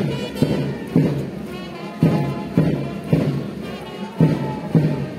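Brass band playing a march tune over a steady bass drum beat, about two beats a second.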